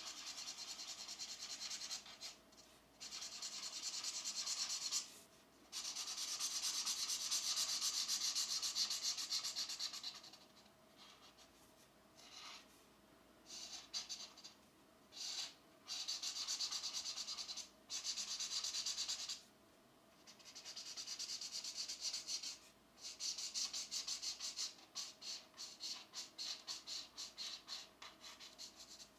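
Pencil colouring on paper: scratchy back-and-forth shading strokes in stretches of a few seconds with short pauses, turning to quicker, shorter strokes near the end.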